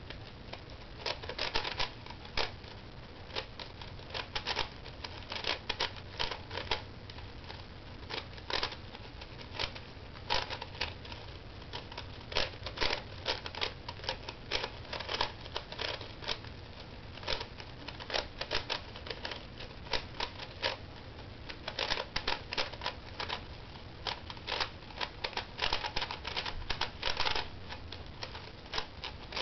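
QJ tiled 4x4 puzzle cube being turned fast by hand: dense flurries of plastic clicking and clacking as the layers turn, with brief pauses between bursts of moves.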